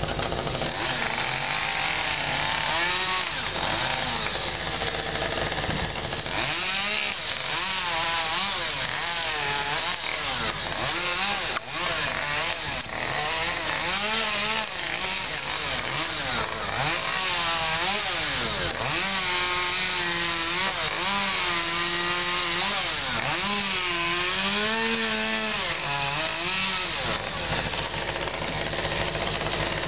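Chainsaw running and revving up and down repeatedly as it cuts through the top of a tree trunk, over a steady low engine hum.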